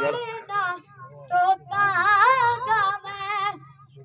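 A boy's high voice reciting a naat, unaccompanied melodic singing with drawn-out, wavering notes, in phrases broken by short pauses.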